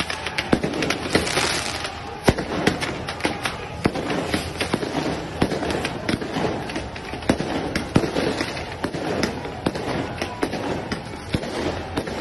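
Football supporters' firecrackers and fireworks going off in rapid, irregular bangs, over the steady din of a large crowd in the street.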